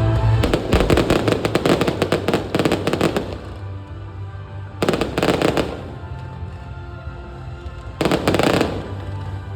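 Aerial fireworks going off in rapid volleys of crackling pops: one dense run lasting about three seconds, starting half a second in, then two shorter bursts about five and eight seconds in. Music plays underneath.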